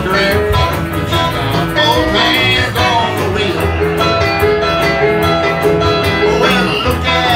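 Live country band playing: electric guitars over a steady beat, with a woman singing into a handheld microphone.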